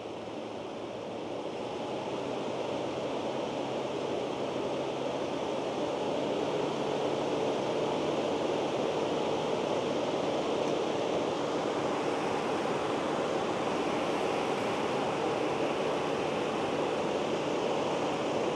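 Electric radiator cooling fan off a Dodge Hellcat Redeye, run from a PWM signal generator at 100 Hz, spinning and pushing a steady rush of air with a faint hum. It grows louder over the first few seconds and then holds steady as the fan speeds up: on this fan a lower duty cycle means a faster speed.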